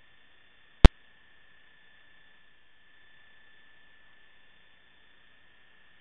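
Faint steady electrical hum and hiss with a thin high tone, broken once a little under a second in by a single sharp click.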